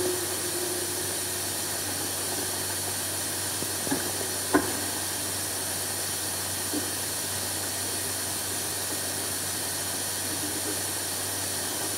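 Steady hiss of an old recording with a low hum underneath, and a couple of faint clicks about four seconds in.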